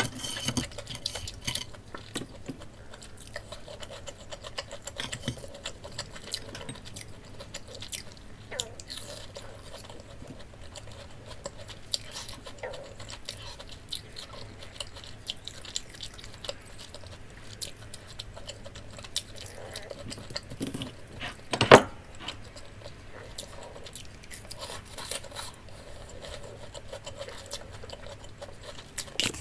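Close-miked chewing of crispy breaded pork cutlet, with many small crunches and mouth clicks. One louder, sharp crunch comes about three-quarters of the way through.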